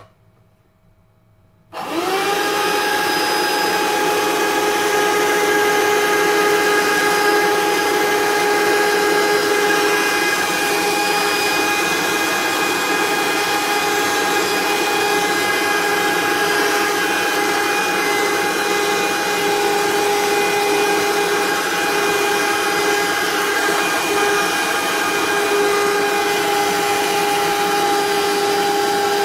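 Bosch BKS4043 14.4 V cordless handheld wet-and-dry vacuum cleaner switched on about two seconds in, its motor whine rising quickly up to speed and then running steadily as it vacuums crumbs off the countertop.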